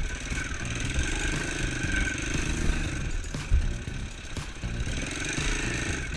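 Pit bike engine running under way, revving up and easing off as it rides through slush, with one sharp thump about three and a half seconds in.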